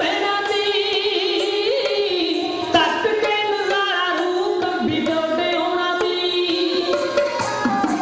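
Punjabi dhadi singing with instrumental accompaniment: a continuous melodic line with held, wavering notes and no break.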